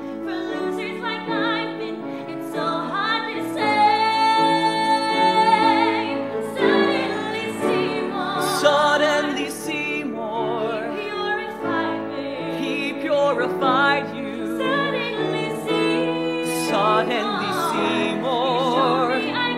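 A woman and then a man singing a show-tune duet in a trained, operatic style with wide vibrato and a long held note, over an instrumental backing.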